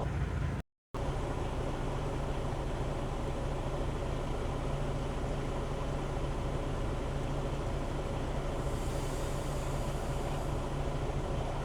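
Truck's diesel engine running with a steady drone and low hum. The sound cuts out completely for a moment about a second in, and a soft hiss rises briefly near the end.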